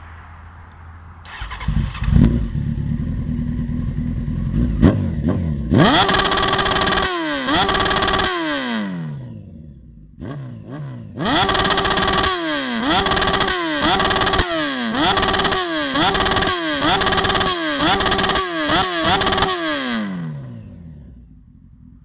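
Honda CBR900RR SC28's inline-four engine with a straight-through Dominator exhaust, starting a little over a second in and running at idle. It is then revved hard: one long rev, a brief drop, then a quick run of about ten sharp throttle blips, each rising and falling in pitch. It dies away near the end.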